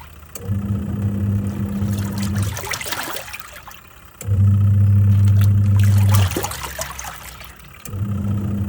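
Twin-tub washing machine's wash motor humming in three runs of about two seconds each, with short pauses of water sloshing between them as the pulsator stops and reverses during the wash cycle.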